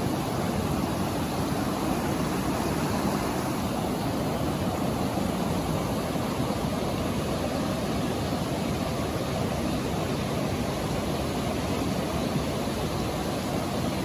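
Mountain stream rushing over boulders in small rapids: a steady, even rush of water.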